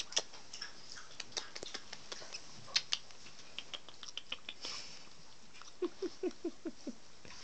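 Soft wet clicks and smacks of kissing and licking between a person and a puppy, scattered irregularly, with a quick run of about six short low squeaks near the end.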